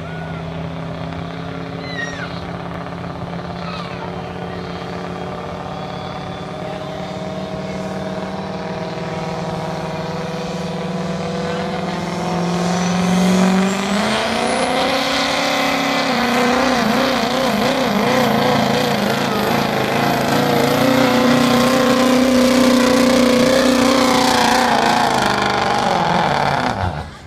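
6.0-litre diesel pickup engine running high on the line with a rising turbo whistle, then about halfway through going to full throttle under load as it drags a pulling sled, its pitch wavering, until it drops away sharply near the end. The owner says it is still dropping a cylinder right off the line.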